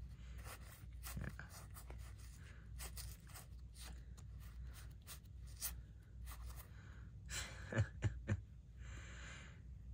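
Paper playing cards being pushed one at a time from hand to hand, sliding and ticking against each other in quick irregular flicks, with a few louder snaps late on.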